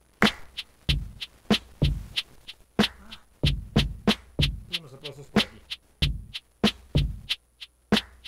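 A live-looped percussion beat repeating steadily, with deep thumps and sharp slap-like hits. A short low pitched phrase comes in about five seconds in.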